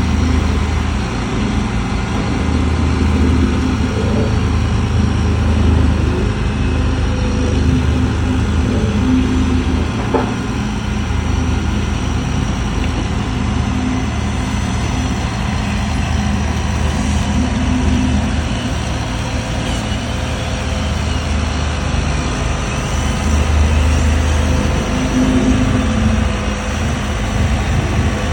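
Concrete pump truck's diesel engine running steadily, a deep hum that swells now and then, with one brief click about ten seconds in.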